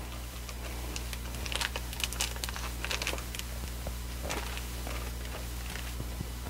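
Clear plastic packaging sleeve crinkling as a paper-toy sheet is handled. The crackles come in scattered bursts, most of them in the first half, with a few more about four seconds in.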